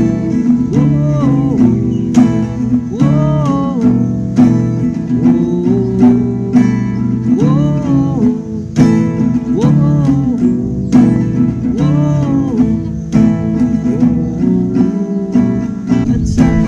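Acoustic guitar strummed in a steady rhythm, with a gliding melody line rising and falling over it about every two seconds.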